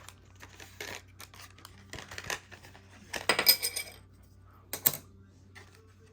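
Metal collector coin clinking against a hard surface, with a brief high metallic ring about three seconds in, among short handling noises and a sharp click near the end.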